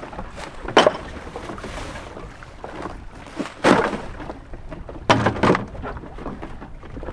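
Trash bags and plastic water jugs being dropped into a small dinghy alongside a sailboat: a few sudden thumps and plastic rustles against the dinghy's hull.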